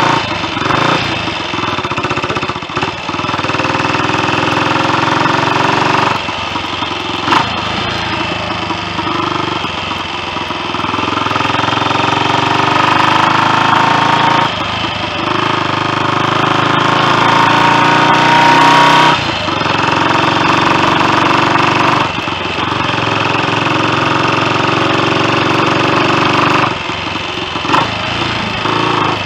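Royal Enfield Continental GT 250's single-cylinder four-stroke engine pulling the bike along on the road, freshly rebuilt. It rises in pitch as the bike accelerates, with several short breaks where the throttle is shut for a gear change.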